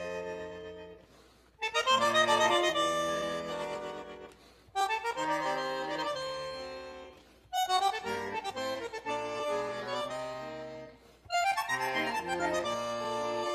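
Instrumental background music of sustained chords in phrases about three seconds long, each starting sharply and fading away before the next begins.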